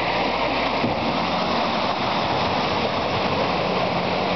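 Land Rover Defender driving through a deep rut of muddy water: steady splashing of water and mud around the wheels over the low running of its engine.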